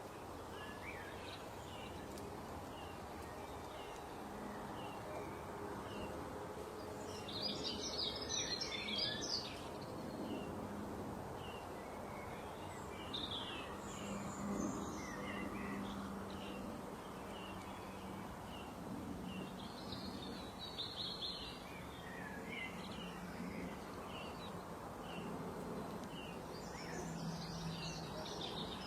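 Small birds chirping: short chirps repeat throughout, with denser bursts of twittering several times, over a steady low background hum.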